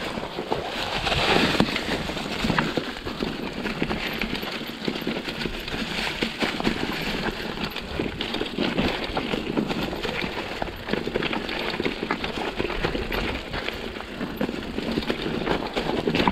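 Mountain bike riding down a rough trail: tyres crunching over stones and roots, with the bike rattling and knocking continuously and unevenly.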